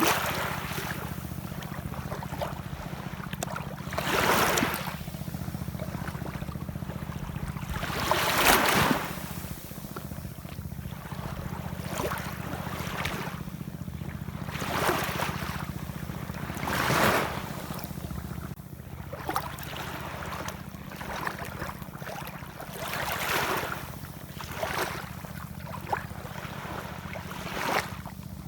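Ocean waves washing in, one swell of surf after another every few seconds, over a steady low rumble.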